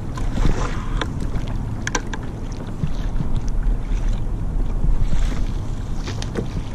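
Steady wind rumble on the microphone over water sloshing against a kayak's hull, with a few sharp clicks and knocks scattered through it.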